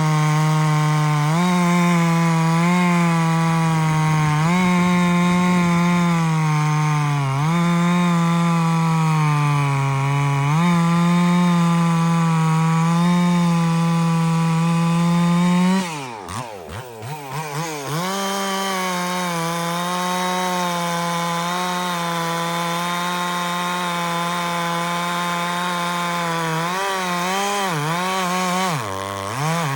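Stihl 046 two-stroke chainsaw with a dual-port muffler and a 28-inch full-skip bar and chain, running at full throttle through a white oak log. Its engine pitch sags again and again under load. About 16 seconds in it falls off sharply and revs back up, and it dips again near the end.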